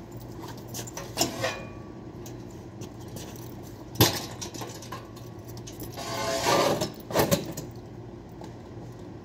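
Steel hand truck clanking sharply as it is tipped back onto its wheels about four seconds in, then rattling as it is wheeled over a tile floor, with a few lighter metallic clinks before and after.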